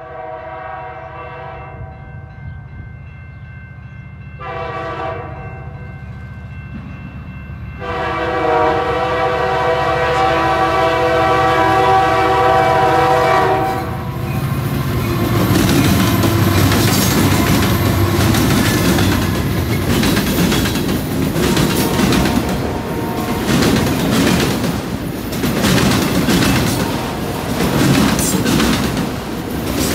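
Diesel freight locomotive air horn: a blast ends about a second in, a short blast comes about five seconds in, and a long blast runs from about eight to fourteen seconds, the close of the long-long-short-long grade-crossing signal, with the locomotive's diesel engine running underneath. From about fourteen seconds the lead units pass close and the autorack cars roll by, steel wheels clacking over rail joints and the junction switch.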